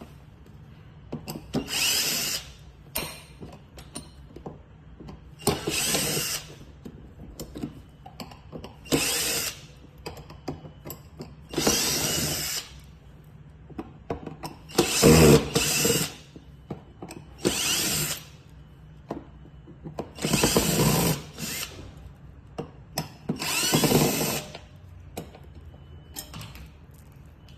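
Power drill running in short bursts of about a second, eight times, with small clicks and knocks in the pauses between.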